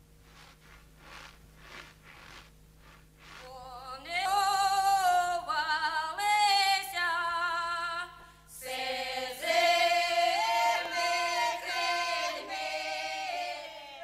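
Unaccompanied singing: a slow song of long held notes with a wide vibrato, coming in about four seconds in and pausing briefly near the eighth second. Before it there are only faint, evenly spaced soft sounds.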